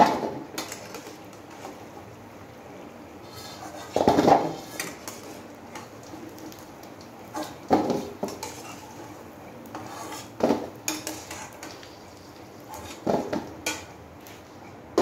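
Perforated stainless-steel skimmer knocking and scraping against a steel kadhai and a steel bowl every few seconds while fried kachoris are lifted out of the hot oil.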